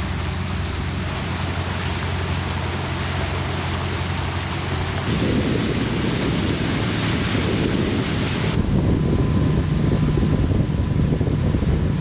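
Small boat under way: its engine runs with a steady low drone beneath wind buffeting the microphone and water rushing past the hull. The wind noise grows heavier about five seconds in.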